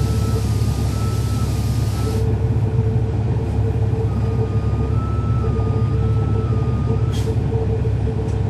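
Cabin sound of a 2011 NABI transit bus, its Cummins ISL9 diesel running with a steady low drone. A high hiss cuts off suddenly about two seconds in, and a short sharp hiss comes about seven seconds in.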